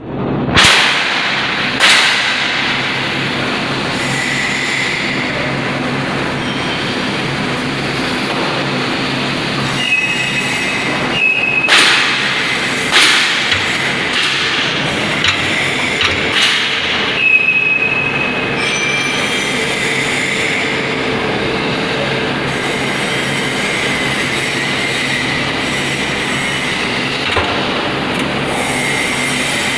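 A vertical baler machine running: a steady mechanical noise with sharp metal clanks every few seconds and a few short, high squeals in the middle.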